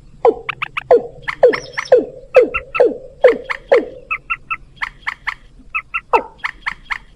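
Bird-lure recording of watercock and white-breasted waterhen calls. A run of low, falling gulping notes comes about two a second. About four seconds in, it gives way to quick clusters of short, higher calls in threes.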